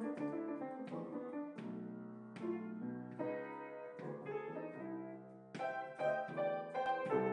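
Instrumental background music led by piano, with chords and notes struck one after another.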